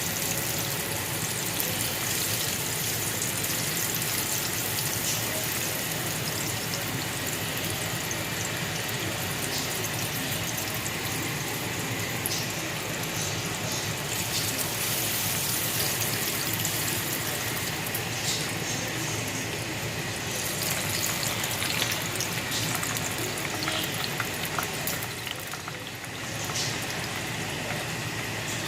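Green tomato slices frying in hot oil: a steady sizzle with scattered small crackles and pops.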